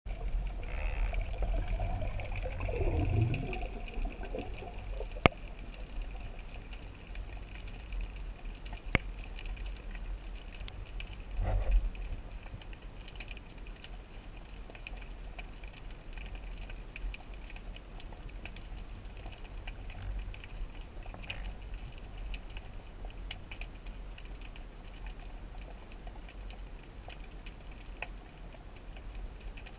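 Underwater ambience picked up by a camera in a waterproof housing: a steady low rumble with a faint steady high tone above it. A falling sweep a few seconds in, a few single sharp clicks and a short louder burst around the middle break the steady background.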